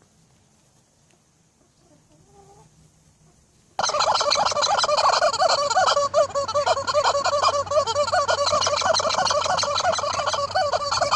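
Near silence at first, then about four seconds in a loud chorus of many fowl calling at once starts abruptly: dense, overlapping warbling calls that go on without a break.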